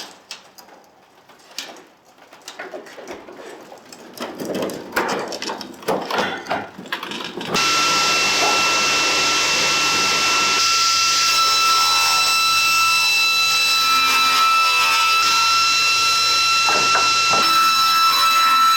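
Workshop handling noises, a series of irregular clicks and knocks, and then, about seven seconds in, a power tool switches on and runs steadily with a high, even whine.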